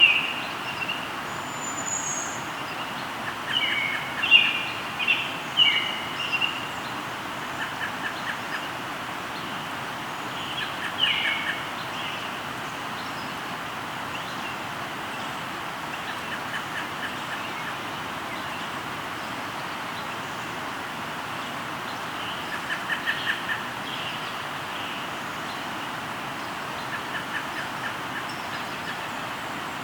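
A river flowing steadily, with birds singing over it: short sharp calls in the first dozen seconds and again around the middle, and a few brief fast trills.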